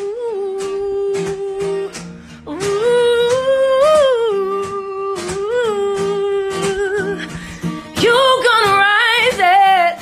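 A woman singing wordlessly in long held notes, with a quick run of wavering notes near the end, over a strummed guitar.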